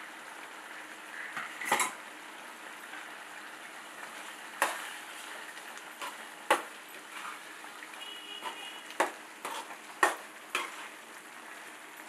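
Metal ladle stirring a thick chicken gravy in a steel pan, knocking against the pan about six times over a steady sizzle from the simmering curry.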